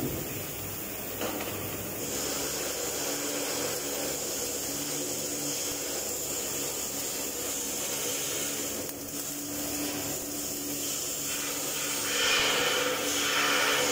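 Overhead arc welding of a steel butt joint: the arc's steady hiss and crackle over a constant hum, getting louder about twelve seconds in.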